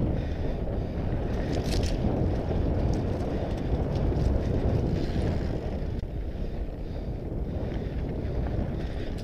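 Wind rushing over the onboard camera's microphone, mixed with the rumble of a Mondraker Panzer fat bike's wide tyres rolling over a gravel dirt road. A few light clicks of stones or bike parts cut through now and then.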